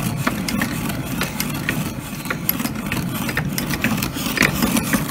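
Hand-cranked blacksmith's post drill turning a spade bit through rough-sawn wood, a steady rattling grind with many small clicks from the turning mechanism as the bit cuts a 2.5-inch door hole.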